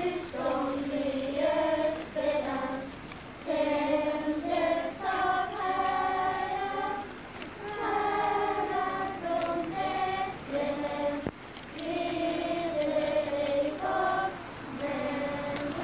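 A choir of girls singing a Lucia song, unaccompanied, in phrases of held notes with short breath pauses between them.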